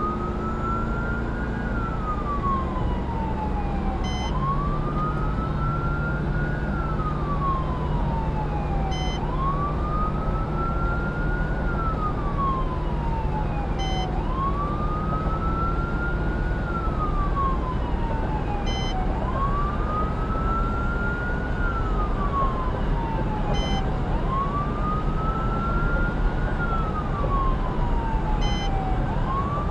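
Fire department vehicle's electronic siren on a slow wail, each cycle rising quickly and then falling slowly over about five seconds, repeating steadily. Heard from inside the cab over steady road and engine noise.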